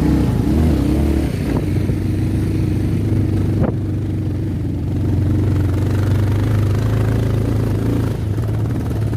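Motorcycle engine running steadily at low speed over a rough dirt track, with a few changes in pitch near the start and one sharp knock about three and a half seconds in.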